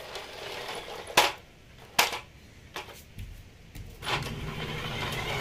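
Two sharp clicks in the first two seconds, then from about four seconds in the steady whirr of a toy radio-controlled dump truck's small electric motor and gears as it drives.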